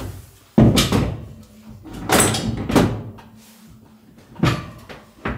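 Several separate knocks and clunks as a plumbing assembly with brass fittings is handled and set against a wall.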